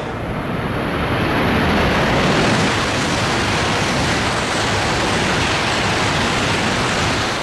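E5-series Shinkansen passing through the station at speed on the through track: a loud, steady rush of air and rolling noise across all pitches, loudest about two seconds in.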